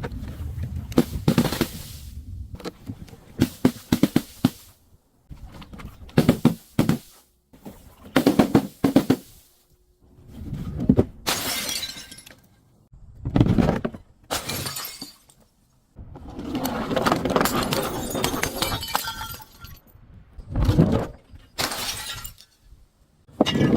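Glass bottles and other objects breaking and being crushed, in a series of about nine separate crackling bursts, each a second or two long, with short pauses between.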